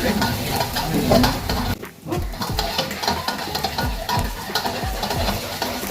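Marinated chicken pieces sizzling as they fry in hot oil, with frequent light knocks and clatter from stirring in the pan. The sizzle drops away briefly about two seconds in.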